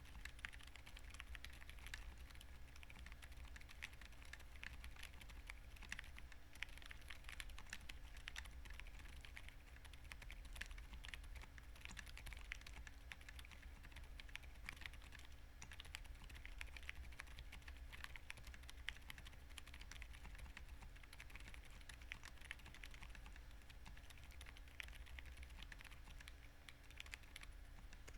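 Continuous soft typing on a custom 60% mechanical keyboard (Tofu60 2.0, aluminium plate, full foam) fitted with lubed Emotoys Silent Daisy silent linear switches and JTK Griseann keycaps: a quiet, muted patter of keystrokes with occasional slightly louder presses, over a faint steady hum.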